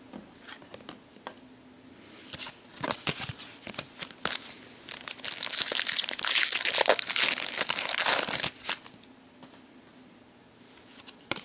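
Foil trading-card pack wrapper being crinkled and torn open, with the crinkling loudest in the middle and a few light crackles either side.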